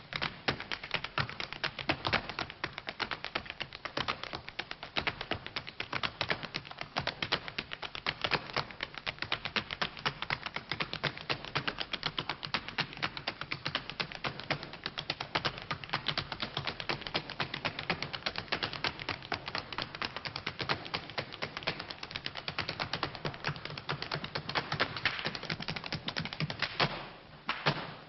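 Two dancers' tap shoes beating out fast, dense rhythms on a hard stage floor, with no music playing. There is a short break in the taps near the end.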